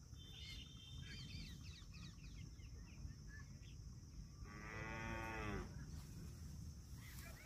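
A cow moos once, a single steady call of just over a second, a little past halfway through.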